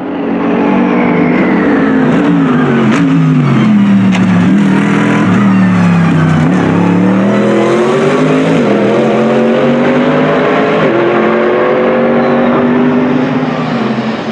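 Mercedes-AMG GT3 race car's naturally aspirated V8 at full voice on track. Its revs fall through a run of downshifts over the first six seconds or so, with a couple of sharp cracks along the way. It then accelerates hard, the pitch climbing with two upshifts, and holds a steady note near the end.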